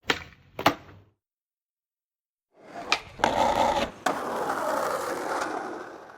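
Skateboard tricks: two sharp wooden clacks about half a second apart, like a tail pop and a landing. After a pause, wheels roll in, with three more sharp board clacks, then a sustained scrape of the board sliding or grinding that fades out near the end.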